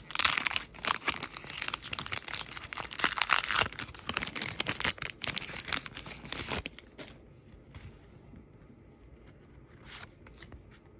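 Foil Pokémon booster pack wrapper being torn open and crinkled, a dense crackling that stops about six and a half seconds in. After that come faint scattered clicks of the cards being handled.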